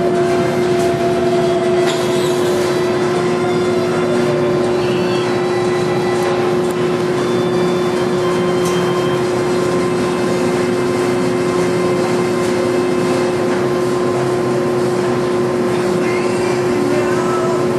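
Speed Queen 125-lb commercial washer-extractor running, its drum turning with wet mats and water sloshing inside, over a steady machine hum.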